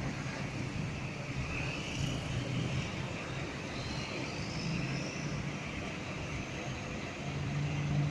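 Diesel engine of a Scania coach idling, a steady low hum under a general outdoor noise haze.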